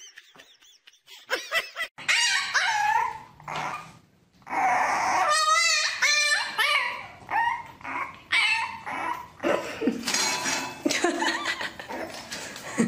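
A dog giving a string of short, high cries that waver up and down in pitch, starting about a second in.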